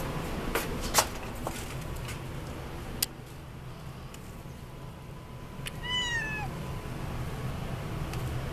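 A cat gives one short meow about six seconds in, its pitch rising a little and then dropping away. A few sharp clicks and knocks come in the first three seconds, the strongest about a second in.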